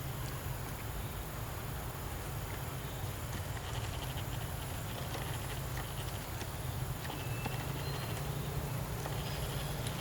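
Outdoor ambience: a steady high insect drone over a low rumble, with a few faint scattered clicks and taps.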